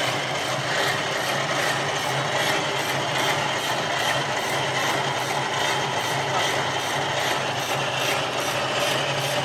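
CS-C barbed wire making machine running steadily: its gears and wire-twisting mechanism make a fast, even mechanical rhythm over a steady low motor hum.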